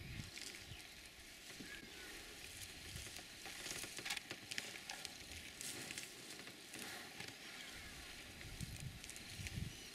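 Faint crackling and rustling of African elephants tearing up and chewing grass, in fine irregular clicks.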